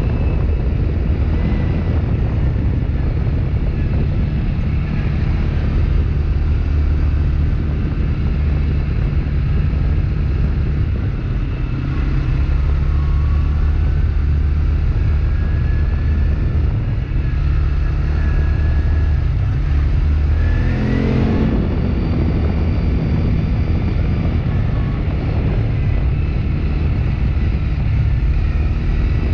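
ATV engine running steadily as the vehicle drives, heard from a camera mounted on its frame. About two-thirds of the way in the engine revs up briefly, rising in pitch.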